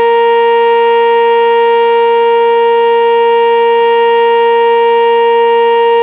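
A Sentry 10V2T outdoor warning siren sounding its steady Alert signal: one loud, unbroken tone that holds its pitch.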